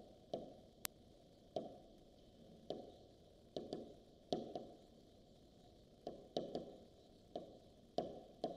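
Stylus tapping on an interactive whiteboard's screen during handwriting: about a dozen faint, irregular taps, some in quick pairs, over a low background hum.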